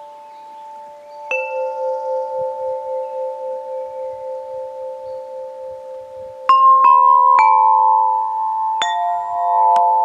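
Clear tube chimes struck one note at a time with a soft ball-headed mallet, each note ringing on long and overlapping the others with a slow wavering. One note sounds about a second in, then a quick run of three, then two more near the end.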